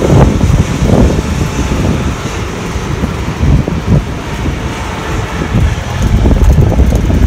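Wind buffeting the camera's microphone while cycling: a loud, uneven low rumble that swells and dips.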